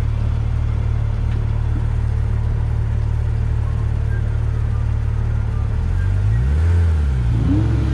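Porsche 911 GT3 RS's naturally aspirated flat-six idling steadily, then revving up and down twice near the end as the car sets off.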